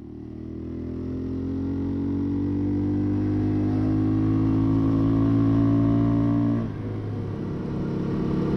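Keeway CR152 motorcycle engine pulling away and accelerating, growing louder at first and rising slowly in pitch, with a gear change and drop in revs near the end, after which it runs on.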